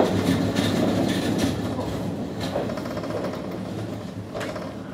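Izuhakone Railway 3000-series electric train slowing to a stop at a station, heard from inside: wheels clack over rail joints, the clacks come further apart, and the running noise gets quieter as it brakes.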